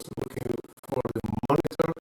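A pitched sound buried under constant crackling and scratchy clicking, the kind of audio fault that the 'Sound Problem' apology points to.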